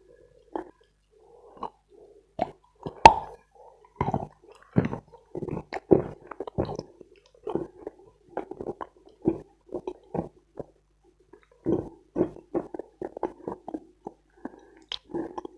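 Close-up chewing of dense dry Khrapovsky chalk with wet clay paste: irregular crunches and crumbling cracks mixed with soft wet mouth sounds, with one sharp, loud crack about three seconds in.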